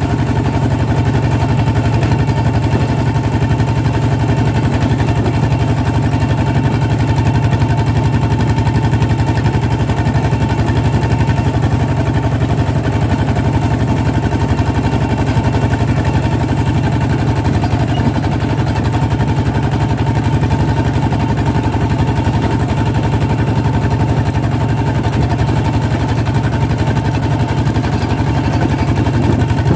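Two-wheel walking tractor's single-cylinder diesel engine running steadily while the tractor drives along. It keeps an even, loud beat with no change in speed.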